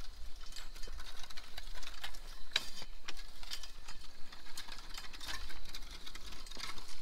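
Double-wheel push hoe being pushed through loose garden soil, its wheels and blade rattling and scraping in a quick run of irregular clicks.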